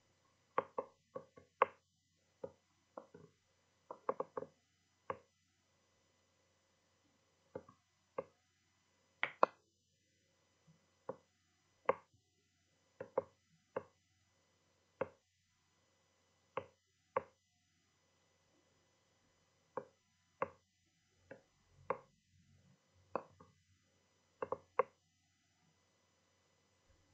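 Irregular sharp clicks, roughly one a second, with a few pauses of about two seconds.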